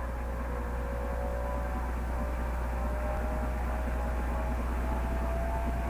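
Electric drive of a Ford Skyliner retractable steel hardtop running as the roof rises out of the trunk: a steady mechanical whine that slowly climbs in pitch.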